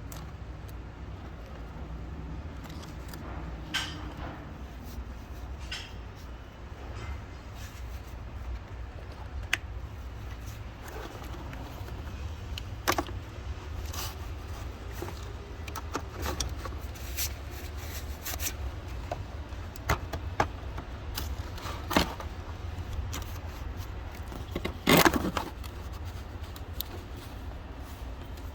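Scattered clicks and clinks of tools and car parts being handled, with a louder clatter about 25 seconds in, over a steady low rumble.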